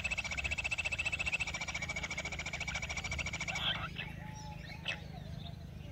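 Recorded jungle bush quail call played back through a small speaker as a lure for trapping: a rapid, evenly spaced train of high notes that starts suddenly and cuts off abruptly after about three and a half seconds.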